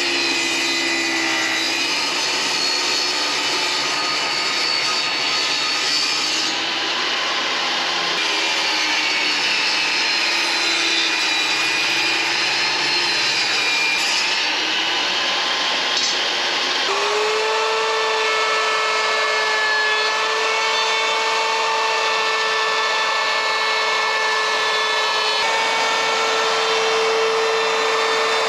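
Craftsman table saw ripping a sheet of birch paneling, its blade running loud and rough through the wood. About two-thirds of the way in the sound changes to a router with a steady, even whine as it cuts along the panel's edge.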